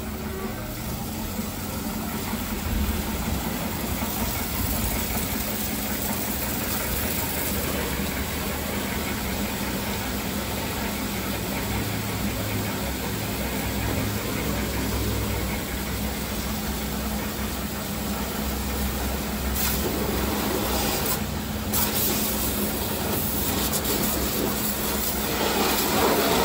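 Pressure washer running: a steady motor hum under the hiss of the water jet spraying the car, a little louder in the last few seconds.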